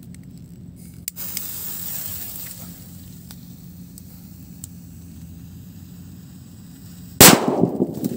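A homemade cup bomb firecracker: its fuse is lit about a second in and hisses for a couple of seconds. About seven seconds in it goes off with one very loud bang that echoes briefly.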